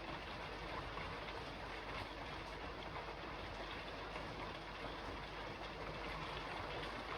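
Steady rain falling on a roof: an even hiss with a few faint ticks of drops.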